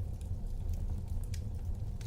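Wood fire burning in a fireplace: a steady low rumble with scattered sharp crackles.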